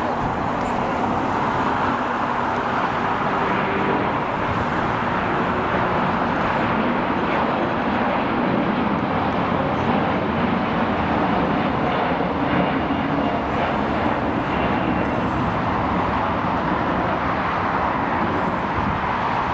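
Jet airliner engines running, a steady, even rush of noise that holds at one level throughout.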